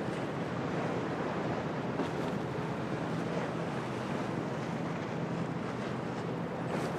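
Storm wind and waves at a harbour: a steady, dense rush of wind and surf with gusts buffeting the microphone, over a faint low steady hum.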